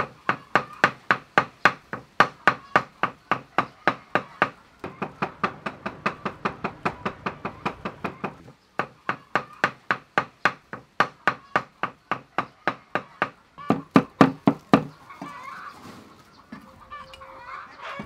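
Cleaver chopping raw pork on a wooden chopping board in quick, even strokes, about four a second, with a short break about halfway; the chopping stops a few seconds before the end. A chicken clucks near the end.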